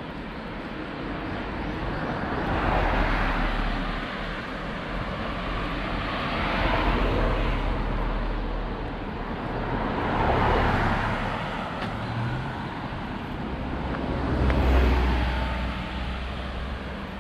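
Cars passing one after another: four swells of road noise, each rising and fading, a few seconds apart.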